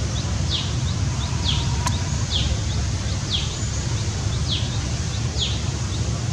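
A bird calling over and over: short high notes that fall in pitch, about one a second, with fainter notes between them, over a steady low rumble.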